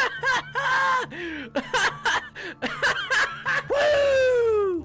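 A voice making silly nonsense noises: a quick string of short squeaky snicker-like sounds, then about a second before the end one long call sliding down in pitch.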